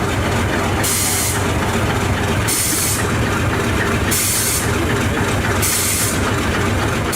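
English Electric diesel locomotive running steadily with a deep, constant rumble. A hiss comes and goes about every second and a half.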